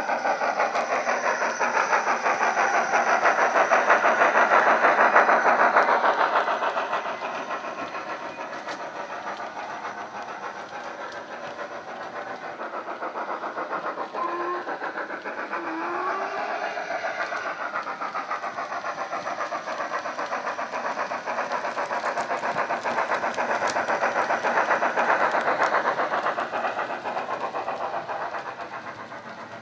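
Wheeltappers DCC sound decoder in a Hornby City of Edinburgh model steam locomotive, playing a fast, even steam exhaust beat through a small speaker in the tender as the model runs. The sound swells twice, early and again near the end, and two short rising tones sound about halfway through.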